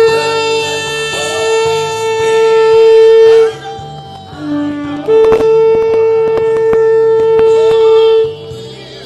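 Shofar (ram's horn) blown in two long, steady blasts of about three seconds each, with a short lower note between them.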